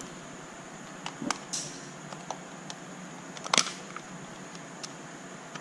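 Scattered small plastic clicks and knocks from handling the opened plastic housing and loose parts of a counterfeit 85 W MagSafe 2 MacBook power adapter. The sharpest click comes about three and a half seconds in.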